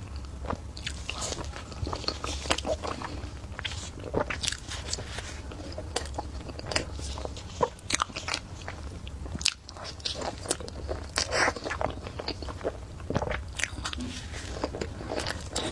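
Close-miked eating: irregular bites, crunching and chewing with sharp mouth clicks, over a low steady hum.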